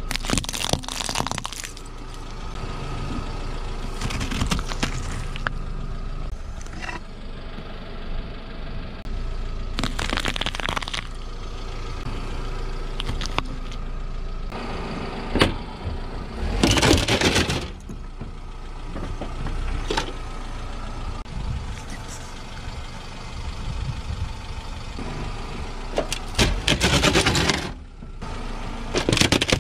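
A car engine running at low speed while its tyre rolls over objects on asphalt and crushes them, with several separate bursts of cracking and crunching. The objects crushed are plastic candy-toy tubes and jackfruit bulbs with their seeds.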